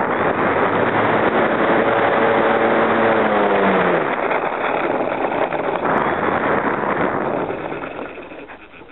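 Wind rushing over the onboard camera of a small RC Su-29 aerobatic plane in low flight, with the motor's hum dropping in pitch about four seconds in as the throttle comes back. The rush dies away over the last second or so as the plane comes down onto the grass.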